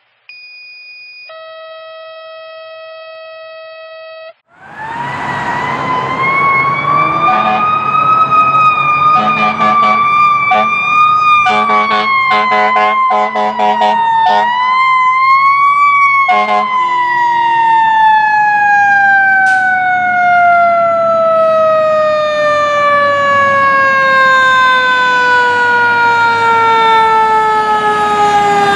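A short synthesized intro tone, then a fire engine's siren winding up about four seconds in, with repeated short horn blasts over it. From about halfway the siren winds slowly down in pitch.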